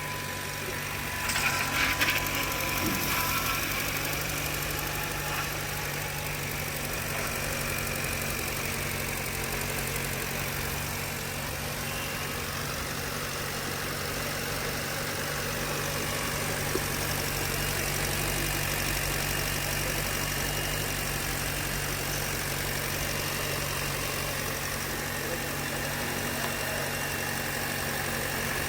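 Hyundai Verna petrol engine idling steadily just after being started following engine repair work, with a short louder burst about a second in.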